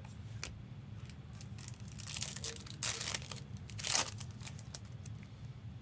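Crinkling and tearing of a trading-card pack wrapper being handled and ripped open, in several short rustling bursts with small clicks. The loudest rip comes about four seconds in.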